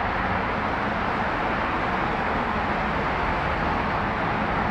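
Steady, even roar of distant city traffic.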